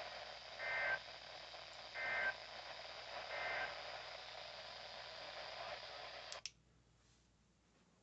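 Midland NOAA weather radio playing broadcast static hiss, broken by three short two-tone data bursts about a second and a half apart: the SAME end-of-message tones that close an EAS alert. About six seconds in there is a click and the audio cuts off as the radio mutes.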